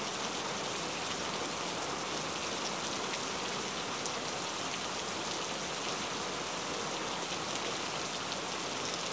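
Steady, even hiss like rain or rushing water, unchanged throughout.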